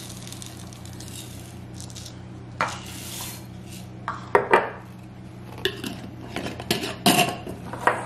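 Dry lentils poured from a glass mason jar into a plastic measuring cup and a glass bowl make a soft rattling hiss, followed by a series of short clinks and knocks as the glass jar is lidded and set down on a stone countertop. A steady low hum runs underneath.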